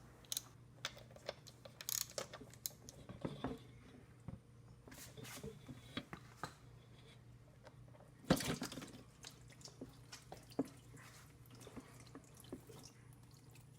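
Warm engine oil draining from an outboard's drain hole into a catch pan, dripping in irregular faint drops, with one louder splash about eight seconds in.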